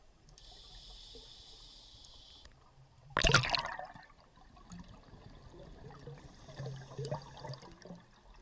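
Sea water sloshing and splashing, with one sudden loud rush of water about three seconds in that fades within a second, and smaller splashes near the end.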